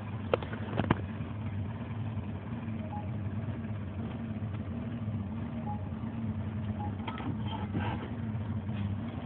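Bass boat's outboard motor running steadily with an even drone, with two short clicks in the first second.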